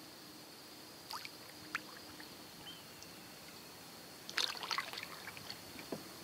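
Water splashing and dripping close to a kayak: a couple of small drips about a second in, a burst of splashing about four seconds in, then two plops near the end.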